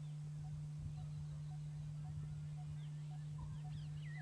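Birds calling: a short low note repeated about twice a second, with scattered higher chirps and whistles. A steady low hum runs under them throughout.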